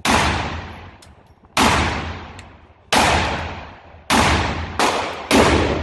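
Magnum Research Desert Eagle .50 AE pistol firing six very loud shots, slow at first and then quicker toward the end. Each report rings and fades off the concrete walls of an indoor range.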